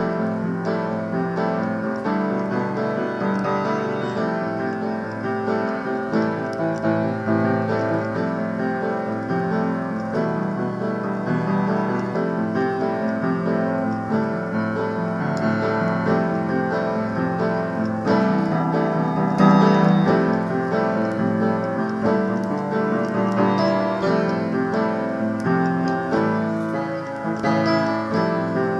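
Piano music: a continuous, dense run of notes at an even level, swelling slightly about two-thirds of the way through.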